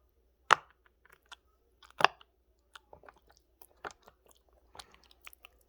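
Silicone pop-it fidget bubbles being pressed through slime: scattered sharp, wet pops and clicks at an uneven pace. The loudest come about half a second and two seconds in.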